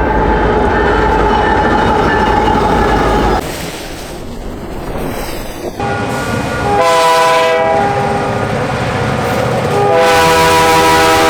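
Diesel locomotive air horns blowing chords over the rumble of a passing train, in separate clips cut together. One horn chord sounds over train noise for about three seconds and stops abruptly. After a short quieter gap, a multi-chime horn gives a short blast, then a blast of about a second, and a long blast starting near the end.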